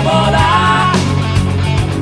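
Rock music playing at full level, with a sustained melodic line over a steady bass.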